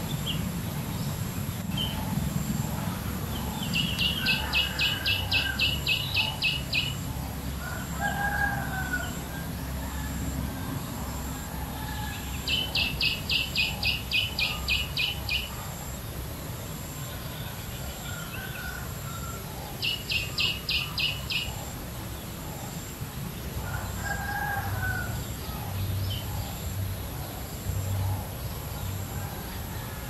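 Outdoor bird ambience: three runs of rapid, even, high notes, about four a second, each lasting two to three seconds, with several shorter lower calls in between. A low rumble and a faint steady high tone run underneath.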